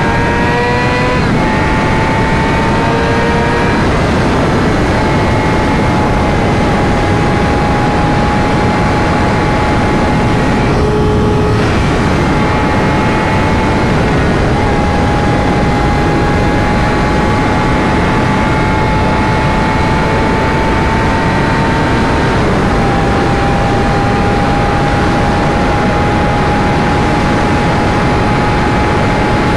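Sportbike engine running at a steady cruise under heavy wind noise on the helmet microphone. Its pitch creeps up and drops back a few times.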